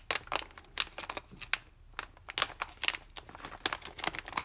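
Glossy plastic pouch crinkling and crackling in quick, irregular snaps as hands work it open at the tear notch.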